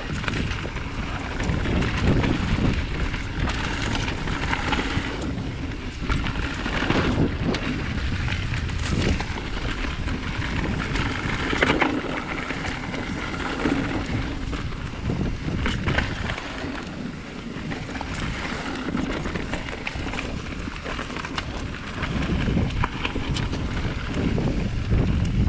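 Wind rushing over a camera microphone as a mountain bike rolls down a dirt singletrack, with tyre noise over gravel and leaf litter and a few sharp knocks as the bike hits bumps.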